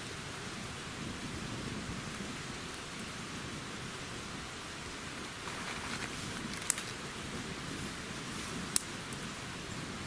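Small wood fire catching in a bundle of dry twigs: a steady soft hiss and crackle, with two sharp pops about two-thirds of the way in and again two seconds later.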